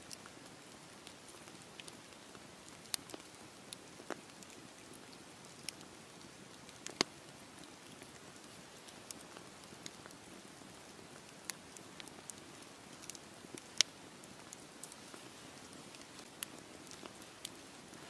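Wood campfire burning: a steady soft hiss with scattered sharp crackles and pops, two of them louder than the rest.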